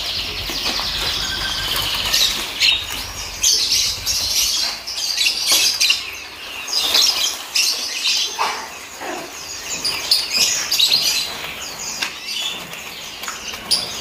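Many caged songbirds chirping and calling over one another in a dense chorus, mixed with short flutters and taps of wings against the cages.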